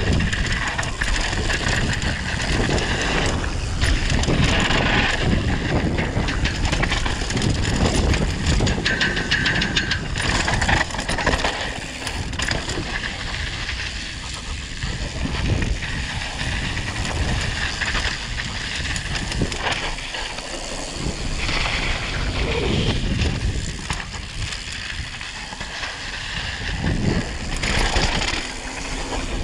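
Mountain bike descending a rough dirt and gravel trail: tyres crunching over dirt and stones and the bike rattling over bumps, with steady wind noise on the microphone.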